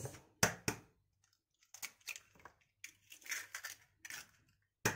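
Raw eggs being cracked: sharp taps of eggshell, two about half a second in and another near the end, with short crackles of shell being broken apart between them.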